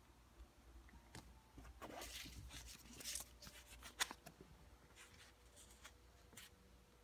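Paper banknotes rustling and crinkling as they are handled and swapped, in a run of soft scratchy bursts, with a sharp click about four seconds in.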